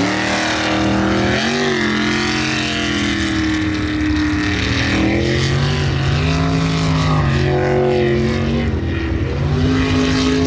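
Jet sprint boat's engine running hard, its pitch dropping and climbing again a few times as the driver lifts off and gets back on the throttle through the turns, over the hiss of the jet's spray.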